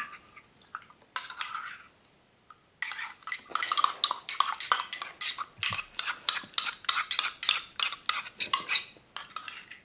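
Slime being stirred and worked in a bowl: a short burst of clicks and scrapes about a second in, then, from about three seconds in, a rapid run of small clicks.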